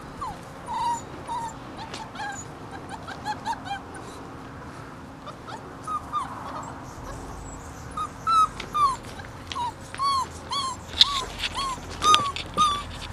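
Bernese Mountain Dog puppy whimpering and yipping in short, high calls. A loose run comes early, then a quicker run of about two a second in the second half.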